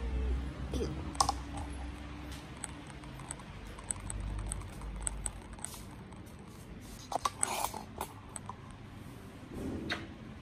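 Handling noise as a cat is held and stroked against a person's clothing: scattered light clicks and scratchy rustling, with a denser burst of rustles and clicks about two-thirds of the way through.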